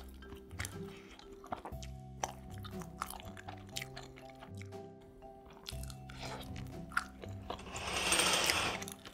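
Crunchy bites and chewing of a pizza-filled bun over soft background music. Near the end a loud rustling rush swells up and fades.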